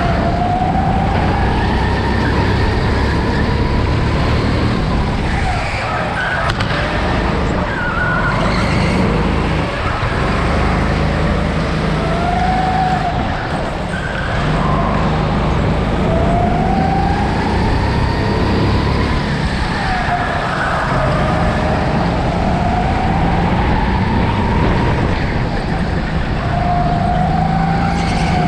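A go-kart running at speed around an indoor track, heard from the driver's seat, its pitch repeatedly rising and falling as it speeds up and slows.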